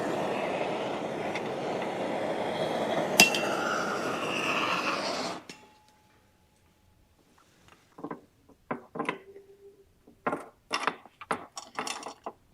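Heat gun blowing steadily while shrinking heat-shrink tubing, switched off about five seconds in. After a short silence come a series of light clicks and clinks of small parts being handled.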